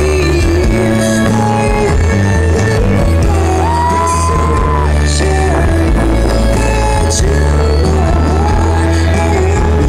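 Live folk-rock band played loud through a PA: a violin melody sliding between notes over electric guitars, bass and drums with cymbal crashes. Recorded close to the speakers, so the sound is harsh and overloaded.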